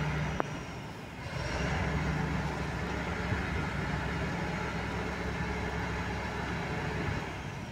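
Engine of a large girder transporter running steadily with a low, even hum. It dips briefly about a second in.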